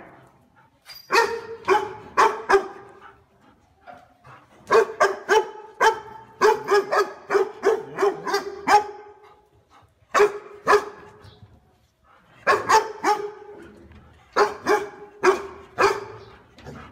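A dog barking in repeated bouts of rapid, loud barks, a long run of about a dozen in the middle, with short pauses between bouts.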